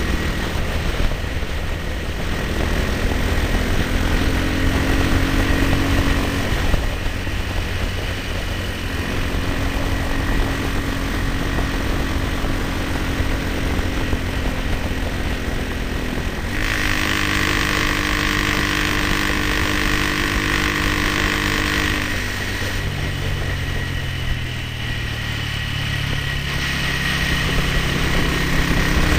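1970 BSA Starfire B25's 250cc single-cylinder four-stroke engine running under way at a steady pace. Its note changes in steps several times as the engine speed changes.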